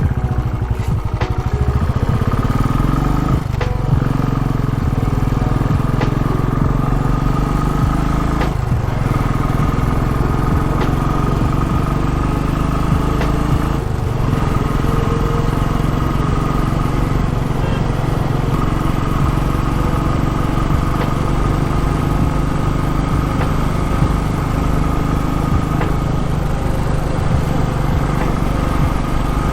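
Royal Enfield Classic 350 single-cylinder engine running steadily under a rider on the move. Its pitch climbs and drops back sharply three times in the first fifteen seconds, as at gear changes, then holds steady.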